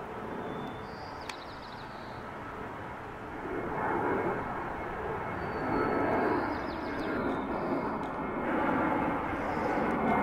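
Jet engines of a Boeing 737 airliner climbing out overhead after takeoff: a broad, rushing roar that grows louder from about four seconds in.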